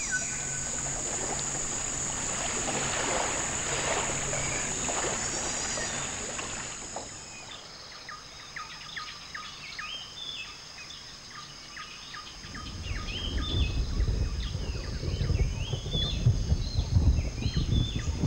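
Tropical rainforest ambience: a steady high-pitched buzz of night insects for the first several seconds gives way to many birds calling in short, repeated chirps. From about twelve seconds in, a low rumbling noise rises underneath and becomes the loudest sound.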